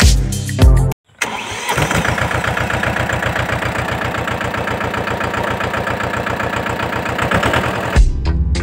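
An engine starting about a second in and then idling with an even, rapid beat, cut off suddenly near the end when music returns. Music plays before the engine starts.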